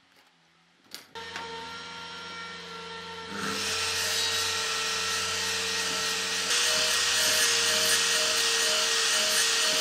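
Makita miter saw running with a steady whine from about a second in, then its blade cutting through a pine board from about three seconds in, the cutting noise growing louder.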